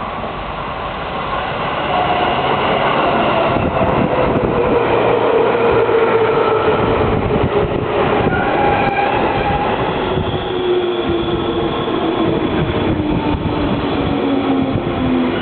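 Electric commuter train pulling in alongside the platform, its wheels clattering over the rail joints. A whine falls steadily in pitch as the train brakes and slows.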